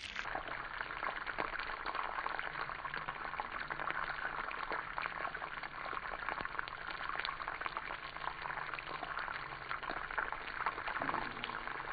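Oil sizzling and bubbling around two whole fish shallow-frying in a wok: a steady crackle full of small pops.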